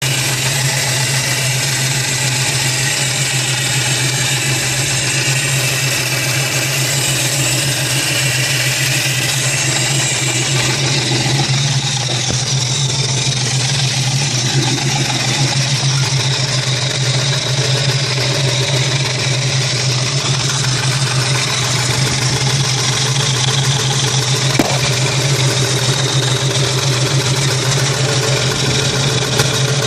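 Nissan VG33 3.3-litre V6 engine running steadily at idle with a ticking noise. The tick persists even with new OEM rod and main bearings fitted and measured within spec with Plastigauge.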